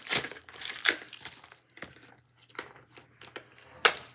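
Plastic packaging crinkling and rustling as an item is pulled out of its bag, in a few sharp bursts: near the start, about a second in, and loudest near the end.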